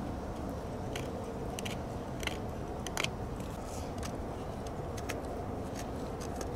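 TOPS Brothers of Bushcraft Fieldcraft knife's high-carbon steel blade shaving curls off a dry wooden stick to make a feather stick: short, crisp scraping strokes at irregular intervals, roughly one a second, the loudest about three seconds in, over a steady low background hum.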